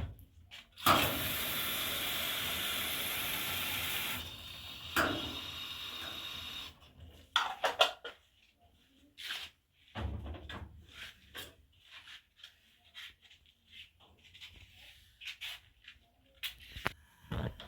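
A steady spraying hiss that starts suddenly, runs loud for about three seconds, drops lower and then cuts off abruptly, followed by scattered knocks and clicks.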